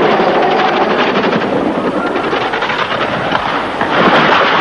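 Helicopter running with a rapid, rattling rotor chop as it goes out of control with its tail caught in the lifting cable. The noise grows louder and harsher near the end.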